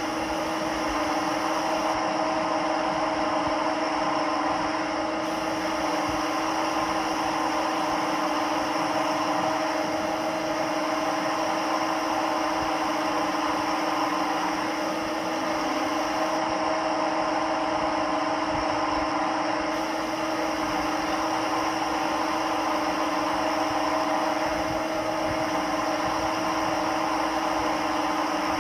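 CNC lathe running steadily: a constant hum with hiss that barely changes.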